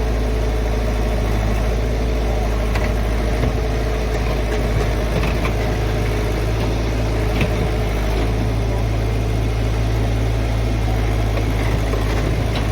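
Diesel engine of a Tata Hitachi floating amphibious excavator running steadily at a low, even pitch, with a few faint clicks over it.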